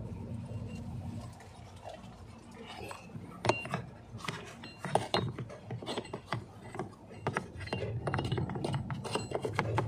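Irregular plastic clicks and knocks as a new blower motor speed control module (the blower resistor block) is handled and pushed into its slot in the heater/AC housing under the dashboard, over a steady low hum. The clicking starts about three seconds in.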